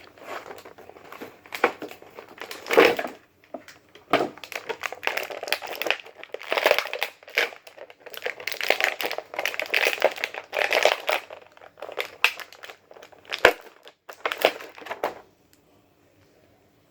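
Action figure packaging crinkling, crackling and clicking as it is handled and opened, in irregular bursts with a few sharp snaps; it stops about two seconds before the end.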